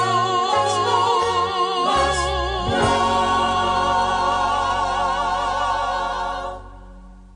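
Background song: a singer holds notes with vibrato over a bass line that steps downward, ending on a long final chord that fades out near the end.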